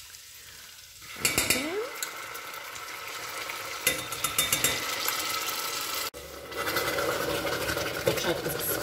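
Tomato paste spooned into hot oil with fried garlic and vinegar in a steel pot, sizzling from about a second in, with a spoon scraping the pot. After a short break, hot water from an electric kettle is poured in over the sizzling sauce.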